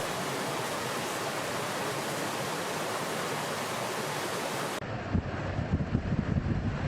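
A steady, even rushing hiss that cuts off abruptly about five seconds in. It gives way to gusty wind rumbling on the microphone.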